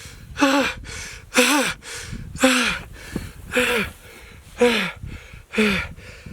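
A chainsaw being pull-started over and over, about one rope pull a second. Each pull gives a short whir that rises and falls as the engine turns over but does not catch. The saw is one its owner thinks is probably flooded.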